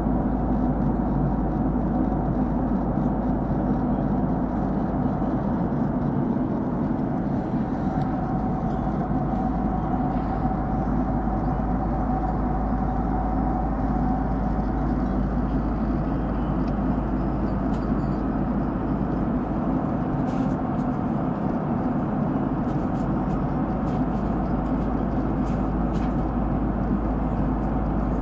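Steady cabin noise inside a Boeing 767-300ER in flight: engine and airflow noise, a constant low rush with a faint steady hum.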